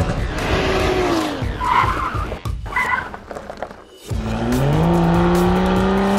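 Car engine coming off the throttle with falling revs, two short tyre squeals about two seconds in, then after a brief lull the engine revs up hard and holds at high revs.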